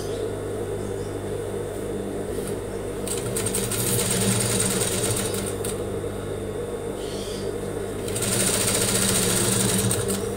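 Industrial sewing machine stitching a seam in two runs, about three seconds in and again about eight seconds in, with its motor humming steadily in between.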